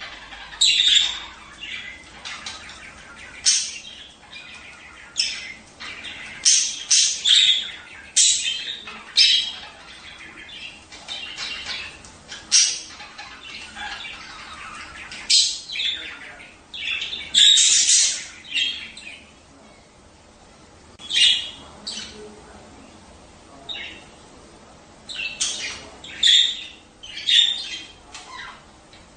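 Budgerigars chirping and squawking in short, quick calls with brief pauses between them, one louder cluster of calls a little past the middle.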